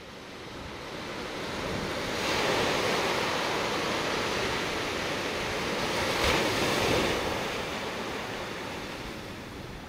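Ocean surf: waves breaking and washing in as a steady rush that fades in at the start, swells twice, about two and six seconds in, and eases off toward the end.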